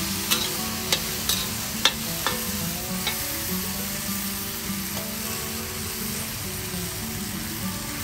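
Beef and vegetables sizzling in oil in a wok, with a metal spatula scraping and clicking against the pan about six times in the first three seconds, then a steady sizzle.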